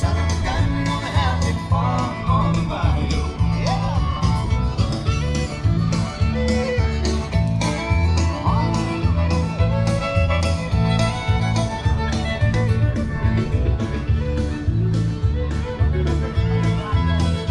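Country-style music with a steady bass beat.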